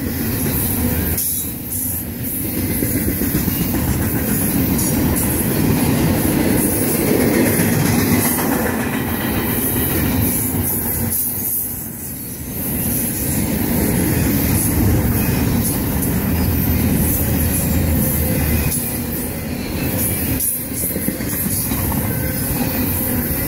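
Double-stack intermodal well cars rolling past, a steady loud rumble of steel wheels on rail. It dips briefly in level a few times, as gaps between the cars go by.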